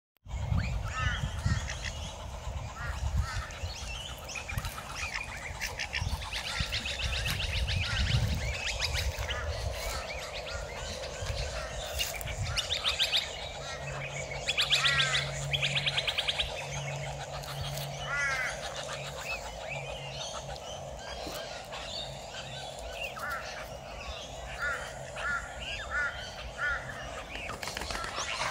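Birds calling: a scatter of short chirps and a few harsher, buzzy calls of the kind a tagger files as duck or goose. A low rumble sits under the first eight seconds, and a faint low steady hum comes in about halfway.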